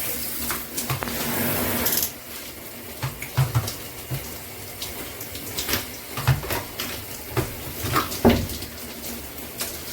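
Water spraying from a handheld shower head, hissing steadily, louder for the first two seconds. Over it come a series of short knocks and clatters as the handheld head is handled and put back in its holder.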